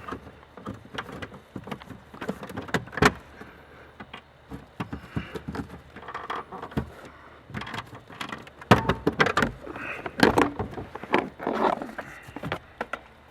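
Plastic under-dash footwell trim panel being pried and worked loose by hand against its centre retaining clip: irregular plastic clicks, knocks and rattles, with a few sharper knocks.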